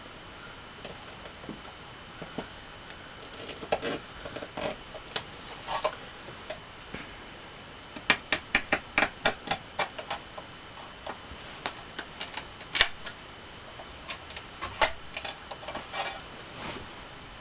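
Sharp clicks and taps of hard plastic and metal parts being handled on an Xbox 360 DVD drive, coming in irregular clusters with a quick run of clicks about eight to ten seconds in.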